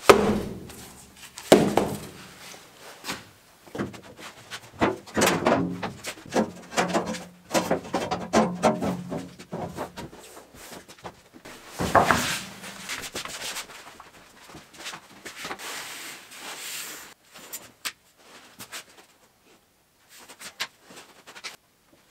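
Irregular thumps, knocks and scraping as heavy rubber belting is unrolled and handled on a concrete floor, with steel slats knocking against it. Loud thumps come at the start, about a second and a half in and again about twelve seconds in, with a busy run of knocking and rubbing in between and only faint clicks toward the end.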